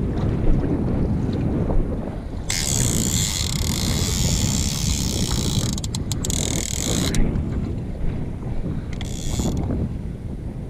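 A fishing reel's clicker buzzing for about five seconds, starting about two and a half seconds in, as a shark runs line off with the bait before the strike. Wind and handling make a steady low rumble on the microphone throughout.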